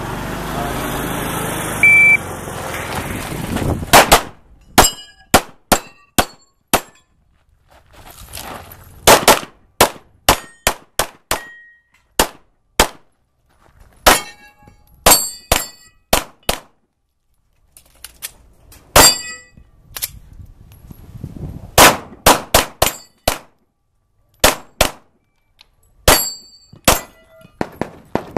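A short high beep about 2 seconds in over a steady rumble, then from about 4 seconds strings of rapid pistol shots in quick groups with short pauses between them. Several shots are followed by a metallic ringing, typical of steel targets being hit.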